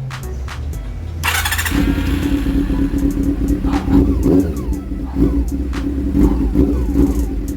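A motorcycle engine running steadily, with a short burst of hiss about a second in and some scattered clicks.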